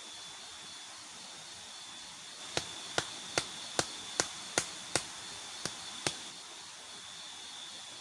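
A run of nine sharp clicks, about two to three a second, over a steady high insect drone.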